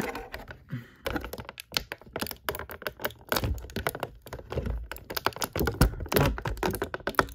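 Clear plastic blister packaging crackling and clicking as it is bent and pulled to free an action figure held in it: a dense, irregular run of sharp crinkles and clicks.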